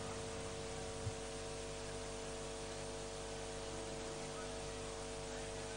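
Steady electrical hum with a layer of hiss, with one faint knock about a second in.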